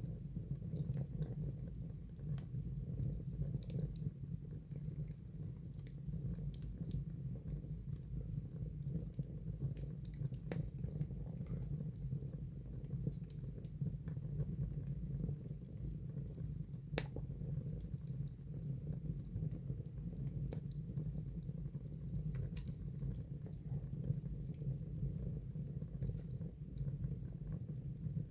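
Fire burning in a fireplace: a steady low rumble with scattered crackles and pops, a sharper pop about 17 seconds in.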